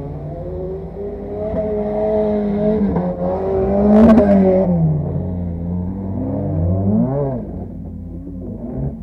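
Rodeocross car's engine heard from inside the cabin, running loudly under load with the revs rising and falling, and a sharp bang about four seconds in. Near the end the revs jump up and drop back, and the engine settles lower and quieter.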